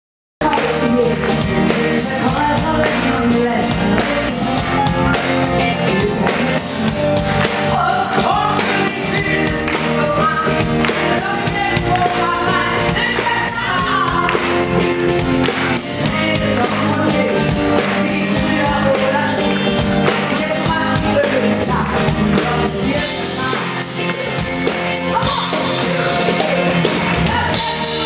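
Live pop-rock band with a woman singing into a microphone, backed by acoustic and electric guitars and drums through the PA, while the audience claps along. The sound cuts in abruptly just after the start.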